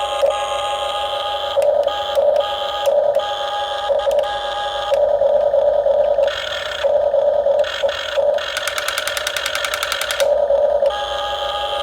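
Radio-controlled model construction machines running, a steady electric whine of several held tones that swells and breaks every second or so. About two-thirds of the way through comes a rapid even rattle lasting a second and a half.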